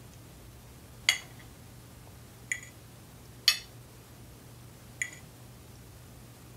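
Cutlery clinking against dinner plates: four short, sharp clinks a second or so apart, over a faint steady low room hum.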